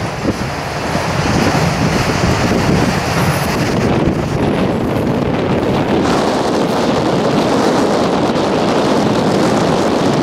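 Freight train rolling past, a loud steady rush of wheel and rail noise, with wind buffeting the microphone.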